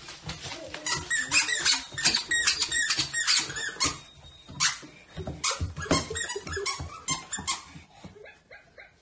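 Squeaky plush dog toys squeaking over and over in quick runs as dogs carry and mouth them, thinning out near the end.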